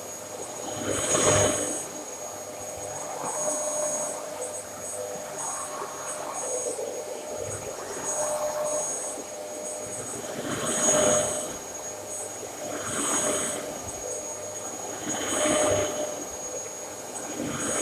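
Dyson DC33 Animal bagless upright vacuum cleaner running steadily, with a constant high-pitched whine. Its sound swells and fades again about every two seconds.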